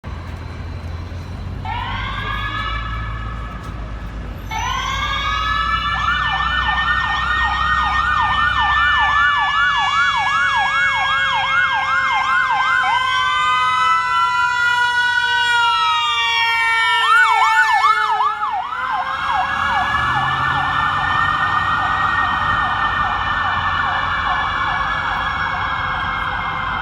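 Ambulance's electronic siren: a wail rising in about two seconds in, joined from about six seconds by a fast yelp of quick repeated sweeps, changing to rapid warbling sweeps around seventeen seconds, then back to a long wail. A low vehicle rumble sits under the first several seconds.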